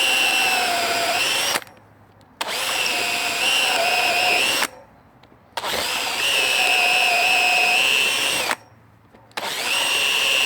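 Electric drill with a 12 mm wood bit boring through two clamped pieces of wood, running with a steady whine in four runs of two to three seconds, stopping briefly between them.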